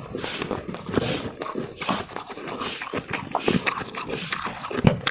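Snow being crunched and chewed in the mouth, close to the microphone: a steady run of crisp crunches, about one every 0.7 seconds.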